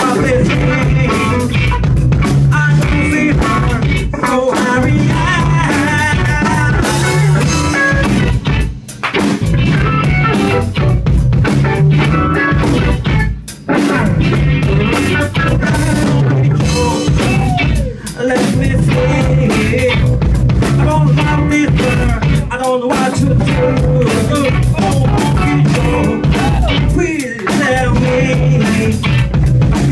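A rock band playing live: electric guitars, electric bass and a drum kit, loud and driving, with a few short breaks in the beat.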